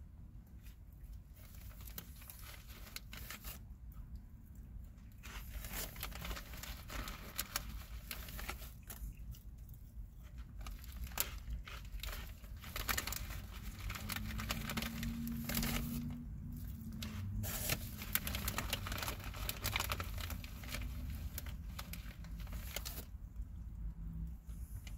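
A cat licking its paw and washing its face: irregular crackly licking sounds over a steady low rumble.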